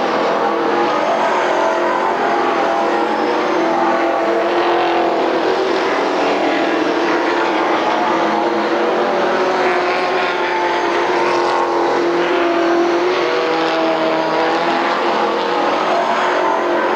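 A pack of stock cars racing together, several engines running hard at once in a steady, continuous din whose pitch wavers as the cars lap and pass. Heard through a camcorder's built-in microphone.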